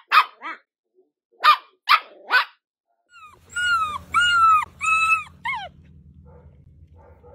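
A dachshund puppy barks in quick, sharp yaps, two near the start and three more about a second and a half in. Then a dog whines in four high, arching cries, over a steady low hum.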